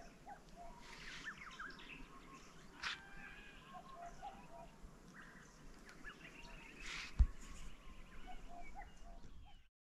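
Several wild birds chirping and whistling in a dawn chorus, with a single loud thump about seven seconds in.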